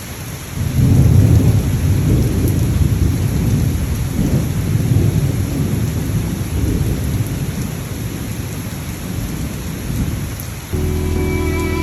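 Thunderstorm: a long, rolling rumble of thunder over steady rain. Music comes in near the end.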